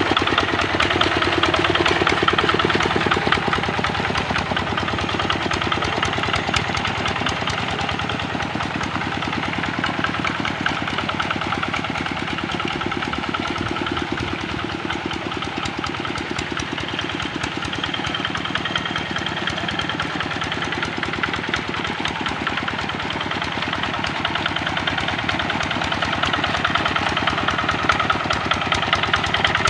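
Kubota RD65 single-cylinder diesel on a Quick Capung Metal hand tractor, running steadily with a rapid even chug while its rotary tiller works flooded paddy mud. It grows quieter in the middle as the tractor moves off, then louder again near the end as it comes back.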